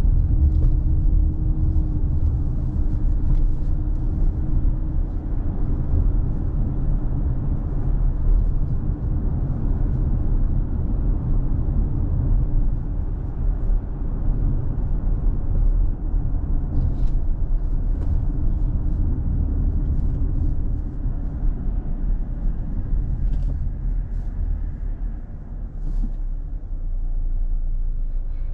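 A car driving on a city road: steady low rumble of engine and tyres on the road, with a faint steady hum in the first few seconds and a few faint ticks in the second half.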